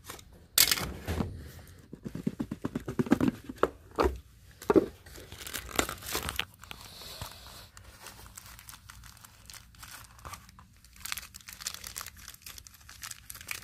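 Box cutter slitting the tape on a small paperboard box, then the lid lifted and a sunglasses case and cloth pouch handled. Dense scratchy crackles and scrapes through the first half, then quieter rustling.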